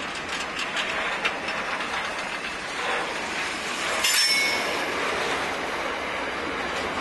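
Container wagons of a long freight train rolling past, a steady rumble of wheels on rail with sharp clicks as wheels cross the rail joints in the first second or so. A brief high-pitched wheel squeal comes a little past halfway.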